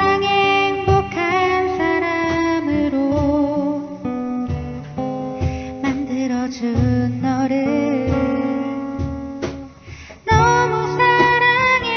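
Acoustic guitar strummed as accompaniment to a woman singing a slow Korean ballad in a wavering, held voice. About ten seconds in, the sound thins briefly, then guitar and voice come back strongly.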